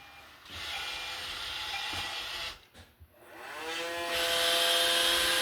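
iRobot Roomba robot vacuum starting its cleaning run. A short whirring stops after about two seconds, then its motor spins up with a rising whine that settles into a steady, noisy drone.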